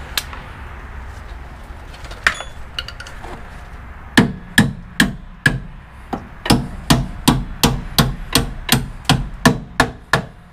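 Hammer striking the end of a rear strut's lower mounting bolt to drive it out through the knuckle: a steady run of about fifteen sharp blows, roughly two to three a second, starting about four seconds in after a couple of light taps.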